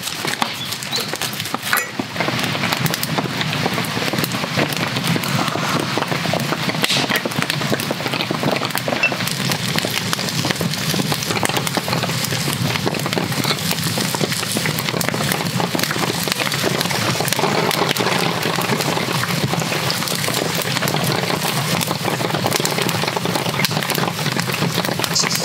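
Dense, steady crackling and pattering that gets a little louder about two seconds in: a wood fire crackling under a small iron skillet of corn kernels, with rain.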